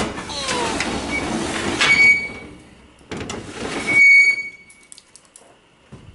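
Old freight elevator's heavy sliding doors being pushed open by hand, rumbling and scraping along their track. There are two short metal squeals, about two and four seconds in.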